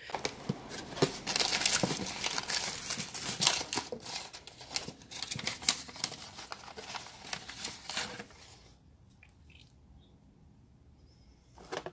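Clear plastic bag crinkling and rustling as a new brake rotor and its packaging are handled, a dense run of small crackles that stops about nine seconds in; a short sharp knock near the end.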